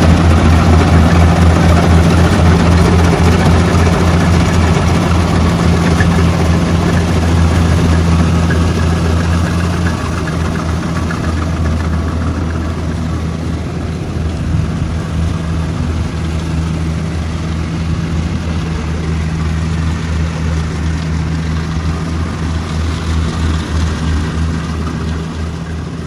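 Diesel engine of a crawler rice combine harvester running steadily while it works, a deep rough hum with a noisy mechanical rush above it. It grows quieter from about ten seconds in as the machine heads away.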